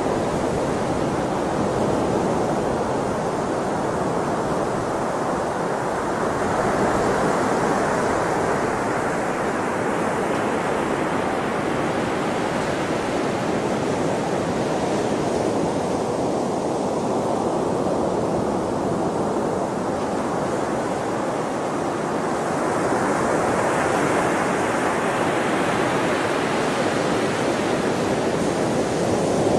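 Sea waves washing ashore: a continuous rush of surf that swells twice, easing off in the middle.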